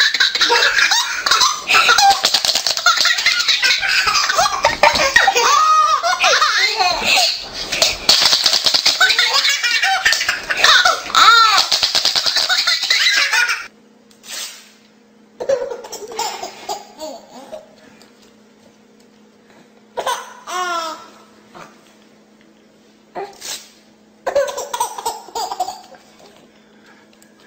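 A baby laughing hard, with continuous belly laughs for about fourteen seconds. Then, after an abrupt change, come quieter, separate bursts of baby laughter between short tearing sounds of paper being ripped.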